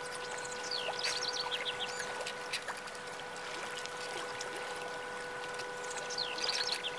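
Birds chirping in two quick series, about a second in and again near the end, over an even trickling-water hiss and a steady held tone with overtones. Faint light clicks are scattered throughout.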